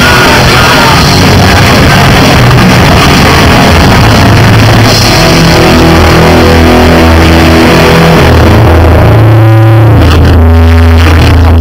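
Live Oi punk band playing, electric guitars and drums, recorded very loud. Near the end the dense playing gives way to long, held, wavering guitar notes.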